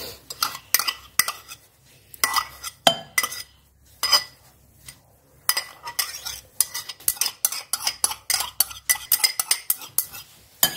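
Steel spoon clinking and scraping against bowls as mayonnaise is scooped out and dropped onto shredded vegetables. It is a run of quick taps and scrapes, with a pause of about two seconds a few seconds in, then denser clinking.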